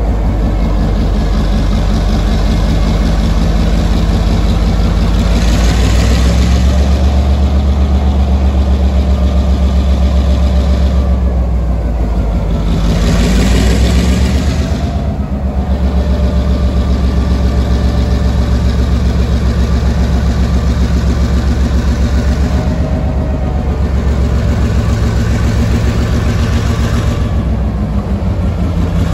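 EMD 567C diesel engine of a Class M2c (EMD G12) diesel-electric locomotive running loud and close with a fast, throbbing beat. The engine speed shifts up and down twice, and there are bursts of hissing.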